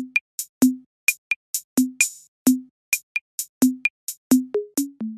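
Electronic background music: a sparse drum-machine beat of deep kick drums and crisp hi-hat and clap hits. Near the end the kicks step up in pitch like a short bass run.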